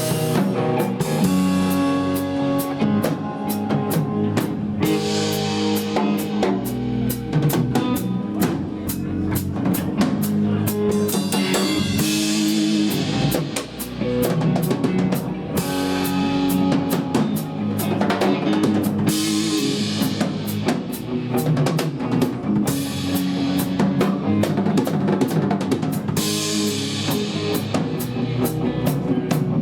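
A live blues-rock band with the drum kit to the fore, played busily through a drum section of the song, while guitar and bass hold notes underneath.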